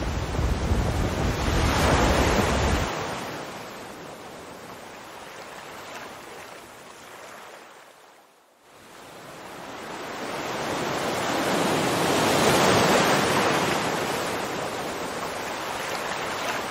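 Sea water rushing and washing, swelling and fading in long surges. Wind buffets the microphone with a low rumble for the first three seconds. The sound dies away almost to nothing about eight seconds in, then swells again.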